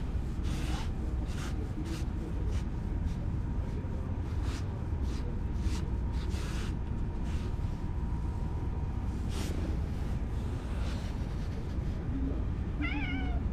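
A cat gives one short wavering meow near the end, over a steady low rumble with scattered soft clicks.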